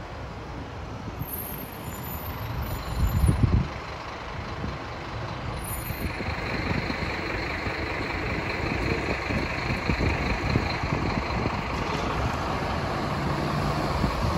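A city bus's engine running and drawing closer, growing louder from about halfway through. Gusts of wind strike the microphone, the strongest about three seconds in.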